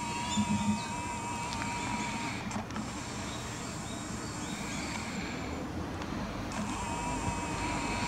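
Outdoor park ambience: a faint, steady high hum that stops about two seconds in and returns near the end, with a few faint bird chirps.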